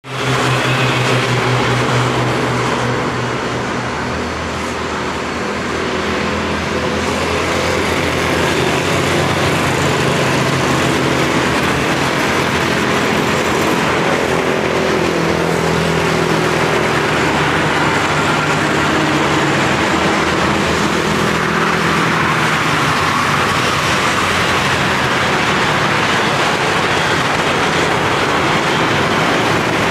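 Street traffic of cars and motorbikes, with engines running and passing close by over constant road noise. The engine tones rise and fall as vehicles come and go.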